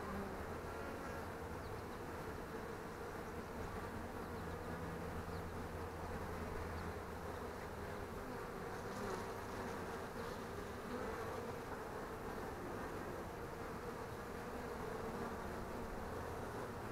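Honey bees of an opened, queenless hive buzzing in a steady, continuous hum around the exposed frames.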